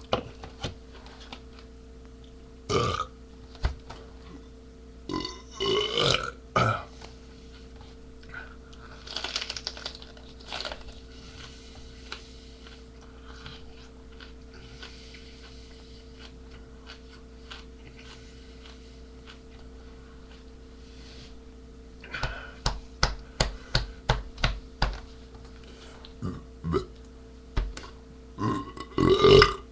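A man burping over and over: single loud burps spread through the first ten seconds, then a quick run of short burps about two-thirds of the way in, and more near the end.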